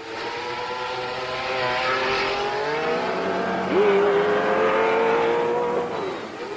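Racing sports-prototype engines at full throttle, several engine notes overlapping. One note rises sharply about three and a half seconds in, holds a high steady pitch, then falls away near the end.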